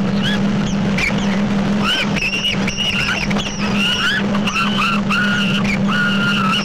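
A flock of gulls calling continuously, overlapping screeching cries that rise and then level off, several held for about half a second near the end, over the steady low drone of a boat's engine.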